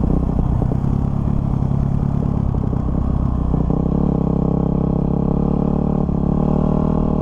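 Dirt bike engine running steadily under throttle while riding a dirt track, with a few knocks in the first second. The engine note changes about three and a half seconds in, then holds steady.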